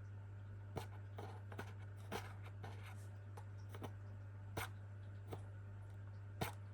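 A pet's usual wake-up noise: about a dozen irregular sharp clicks and scratches, the loudest near the end, over a steady low hum.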